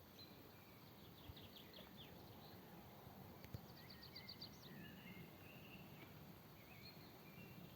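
Faint birdsong in woodland: two quick trills of rapidly repeated high notes, then scattered short high whistles over a quiet background hiss.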